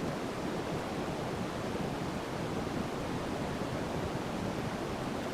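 Steady rushing of running water, like a nearby stream, with no breaks or separate events.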